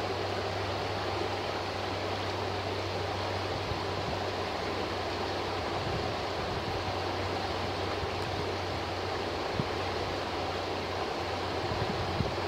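A shallow, rocky river rushing steadily over a riffle, a constant even roar of water.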